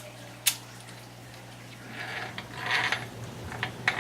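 Small metal parts and a hex driver being handled during engine mounting on an RC car chassis. A sharp click comes about half a second in, then clicking and rattling starts about two seconds in and grows louder.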